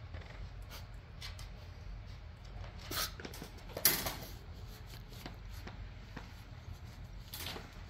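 Great Pyrenees puppies play-wrestling on a hardwood floor: small scuffles, claw taps and fur rustles, over a steady low hum. A louder rustle or knock comes about four seconds in, with smaller ones just before it and near the end.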